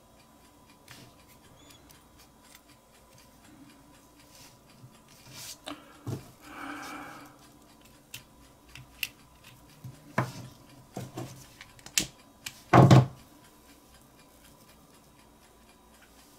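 Small metal clicks and ticks of steel tweezers working the flame-adjuster wheel on an Imco G11 butane lighter, with a louder half-second burst of noise about thirteen seconds in.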